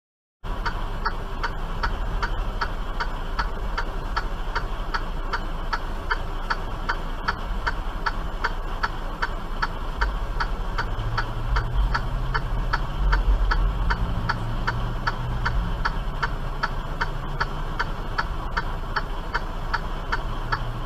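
A semi truck's indicator flasher ticking evenly, about twice a second, heard inside the cab over the low rumble of the truck's engine, which swells a little around the middle.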